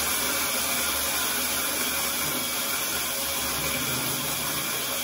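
Electric hand blender mounted on its mini-chopper bowl, running steadily as it grinds cornflakes into crumbs.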